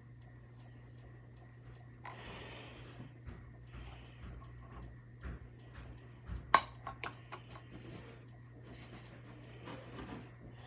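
Soft breathing through the nose, with a sharp click about two-thirds of the way in and several smaller clicks after it as makeup items are handled. A steady low hum runs underneath.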